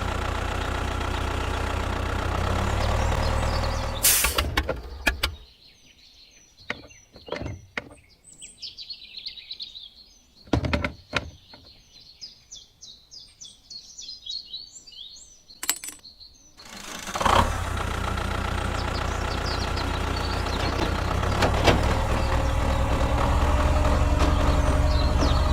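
Motor of a homemade mini tractor running steadily, then stopping for about eleven seconds, during which birds chirp and a few clicks are heard, then running again.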